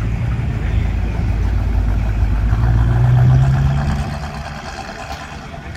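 Cars driving slowly past one after another, a low steady engine rumble that grows loudest about three seconds in and then fades away.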